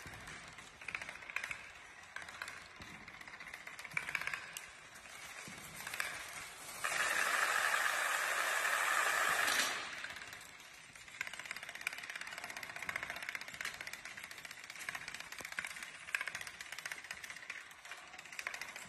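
A long chain of dominoes toppling: a continuous rapid clicking clatter of tile against tile. In the middle it swells for about three seconds into a much louder, denser rush of clatter as many dominoes fall at once, then drops sharply back to the steady run.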